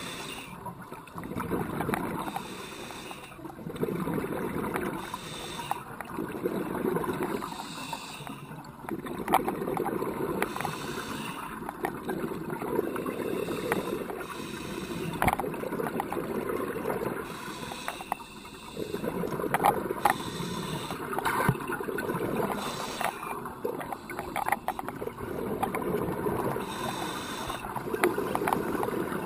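Scuba regulator breathing heard underwater: rushes of exhaled bubbles repeating every few seconds, with scattered faint clicks between them.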